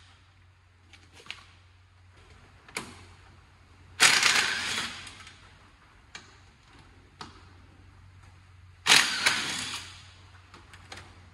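Cordless impact wrench hammering in two short bursts, about four and nine seconds in, working at the Sur-Ron's motor mounting bolts, which are held with Loctite and slow to break loose. Faint clicks of tools are heard between the bursts.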